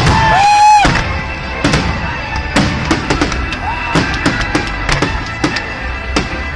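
A fireworks display bursting in irregular bangs and crackles over accompanying music with a drum beat.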